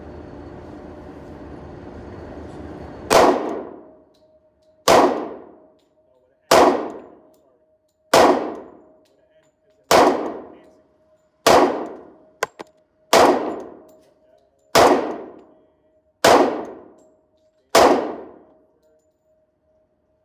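Pistol shots fired one at a time at a steady pace, ten in a row about a second and a half apart starting about three seconds in, each with a ringing echo tail. Before the first shot there is a steady hiss of background noise that stops at the first shot.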